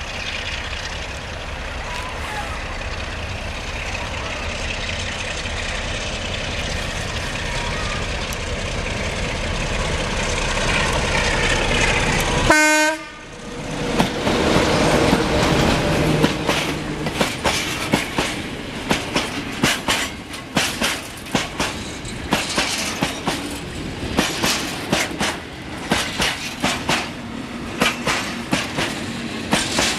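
Electroputere LDE 2100 (class 060-DA) diesel-electric locomotive with a Sulzer engine, hauling a freight train: the engine grows steadily louder as it approaches, and a short horn blast sounds about twelve seconds in. The locomotive then passes, and tank wagons roll by with a rhythmic clickety-clack of wheels over the rail joints.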